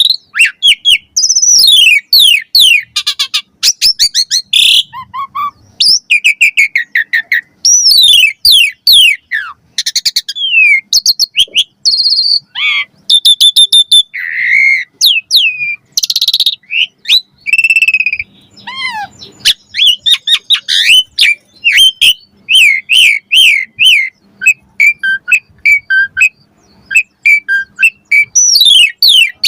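Asian pied starling (jalak suren) in full song: a loud, fast, varied run of whistled notes, many sliding down in pitch, mixed with squeaky and rasping calls and short pauses.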